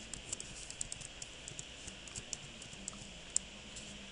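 Computer keyboard keys clicking irregularly, several keystrokes a second, with one sharper click a little over three seconds in, over a steady hiss and a low hum.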